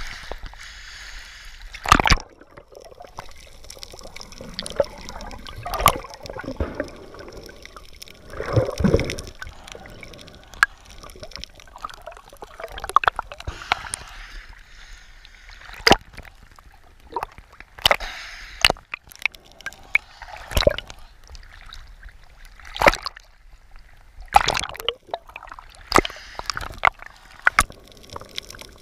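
Water sloshing and gurgling around a camera moving from the sea surface to underwater, with irregular sharp clicks and knocks.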